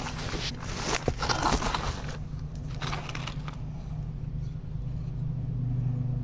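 Rustling and crackling handling noise as the recording phone is moved close against the ground, in irregular bursts over roughly the first three and a half seconds, then a low steady hum.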